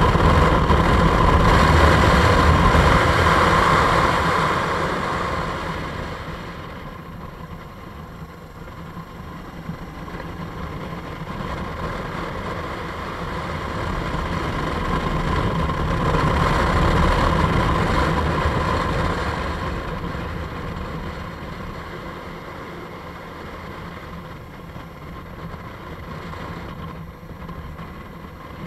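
Motorcycle running along a road, its engine mixed with wind and road rush. It is louder for the first few seconds and swells again around the middle, easing off in between.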